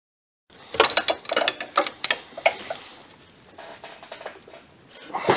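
Metal wrench clicking and clinking on the steel brake-line fittings of an ABS pump and module as they are tightened. A quick run of sharp clicks starts about half a second in, then fainter ticks and scrapes, and another clink near the end.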